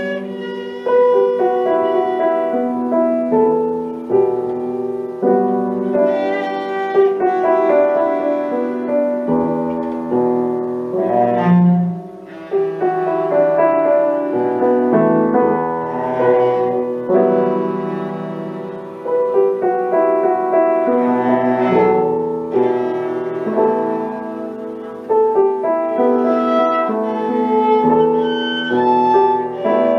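Cello and piano playing a classical cello sonata, the cello's bowed melody over a moving piano part.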